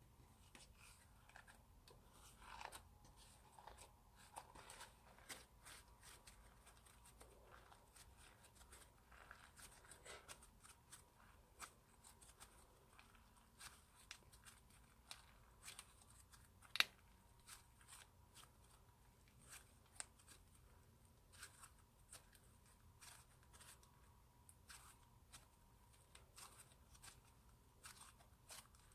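Slime being handled and pressed, giving faint, irregular sticky clicks and crackles, with one sharper click a little past halfway.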